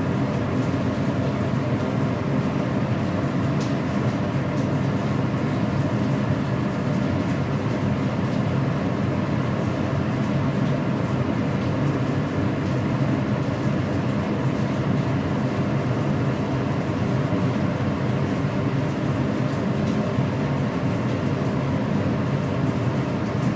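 Steady, unbroken hum and rush of a lit gas stove burner, with a constant machine drone under it, while sugar syrup heats in a steel ladle over the flame.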